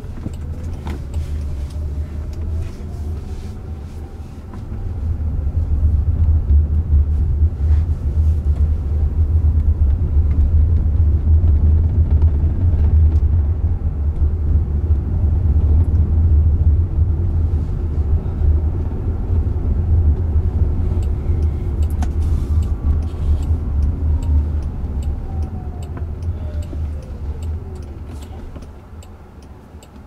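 Road and tyre rumble inside the cabin of a Jaguar I-Pace electric car driving along a city street. Its electric motor whine rises in pitch as it speeds up in the first few seconds. The rumble grows louder at speed, then the whine falls in pitch and the rumble fades as the car slows for a stop sign near the end.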